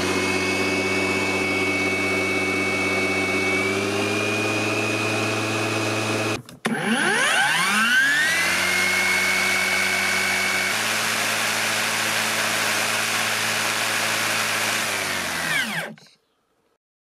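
Parkside PRMA 40-Li C1 40V cordless mower's brushless motor and blade spinning up with a rising whine, then running at a steady pitch. About six seconds in it spins up again in eco mode, its tone shifts a little later, and near the end it winds down and stops.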